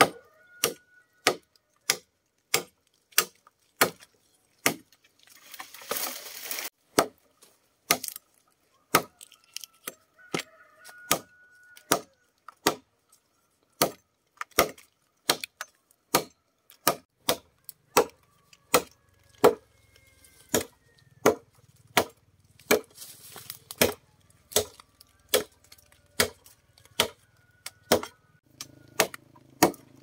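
Repeated sharp blows on wood at an even pace, about three every two seconds, as in chopping or hammering timber. A brief crackle comes about six seconds in.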